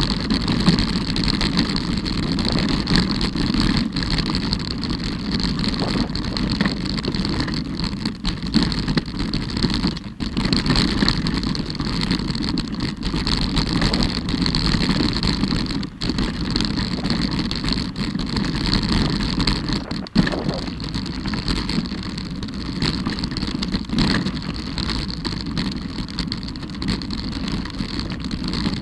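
Mountain bike riding fast down a rocky, gravelly trail: a steady rumble of tyres over the stones, with frequent small knocks and rattles from the bike.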